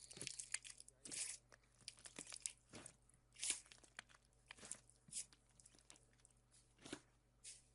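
Slime being squeezed and poked with fingers, giving faint, irregular crackles and pops.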